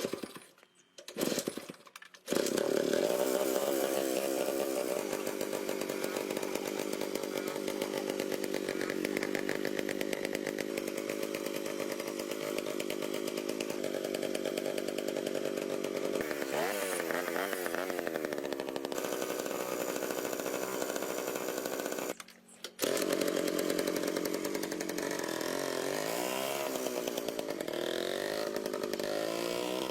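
A restored old Jawa motorcycle's engine catches about two seconds in and runs steadily, with throttle blips that swing the pitch up and down. The sound drops out for about half a second past the two-thirds mark, then comes back running and is revved again near the end.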